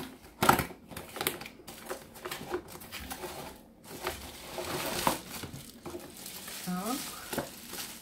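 A cardboard box being pulled and torn open by hand, with rustling and crinkling of the packaging and scattered sharp clicks and knocks of the cardboard.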